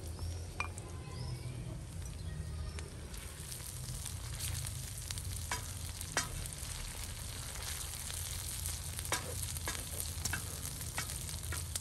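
Chopped onion, tomato paste and dried plums sizzling in hot oil in a wide steel pan, stirred with a wooden spatula. A steady hiss with scattered sharp clicks, more frequent in the second half.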